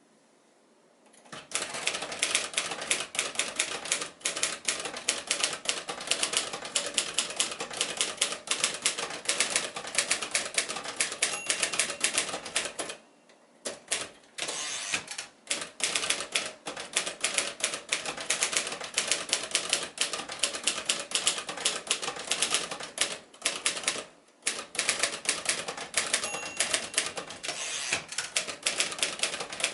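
Royal Arrow portable typewriter being typed on: a rapid run of key strikes that starts about a second in and stops twice briefly.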